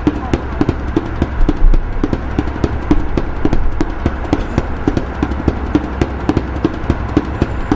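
A fast, even clatter of hard knocks, about five or six a second, each with a short hollow ring.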